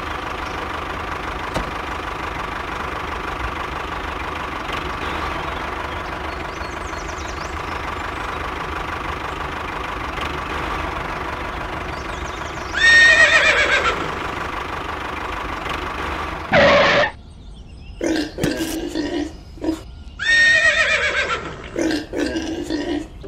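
A small motor runs steadily for about the first half. Then a horse neighs loudly, neighs again a few seconds later, and gives a third, longer whinny near the end.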